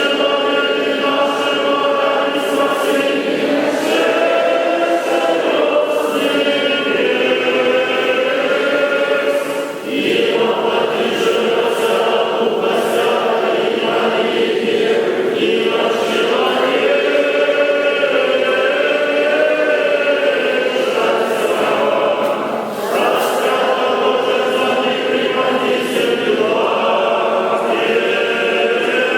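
A choir singing Orthodox liturgical chant without instruments, in long held phrases with brief pauses for breath about ten and twenty-two seconds in.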